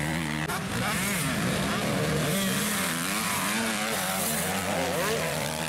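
Several motocross bikes racing, their engines revving up and down one over another as they accelerate and shift.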